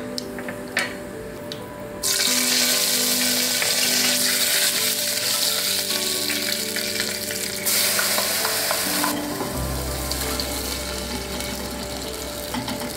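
Hot oil sizzling in a saucepan. The hiss starts suddenly about two seconds in, as curry leaves go into the oil with mustard and fenugreek seeds. It flares again near eight seconds as ground coconut paste is added, then settles while a wooden spatula stirs.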